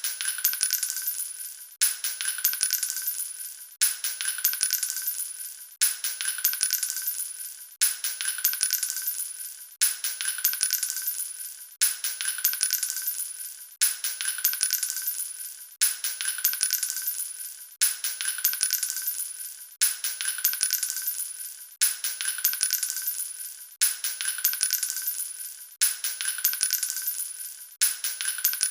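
Small capsules dropping onto a hard floor and bouncing and rattling to a stop, the same clatter repeated about every two seconds.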